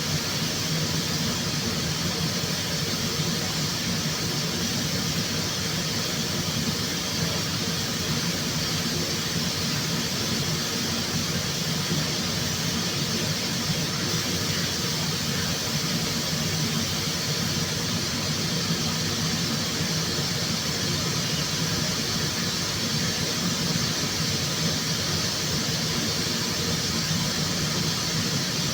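Steady, unbroken mechanical hum with air hiss from paint-shop air equipment.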